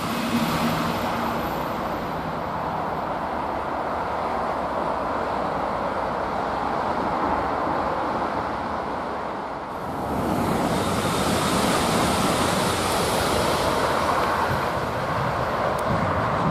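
Steady rush of road traffic and wind. About ten seconds in it turns abruptly louder and brighter.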